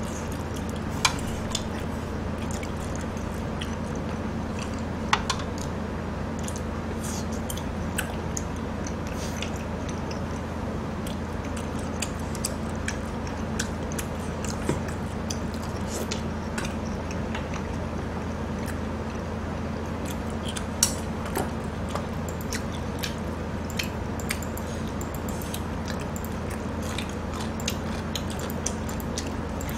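Close-miked eating sounds: quiet chewing, with many short clicks of chopsticks and cutlery against dishes scattered through, over a steady low hum.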